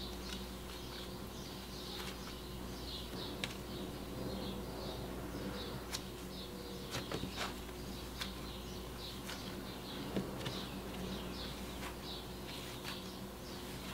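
Fluffy cloud slime being squished and stretched by hand: a soft, continuous crackling and squishing with a few sharp clicks, over a steady low hum.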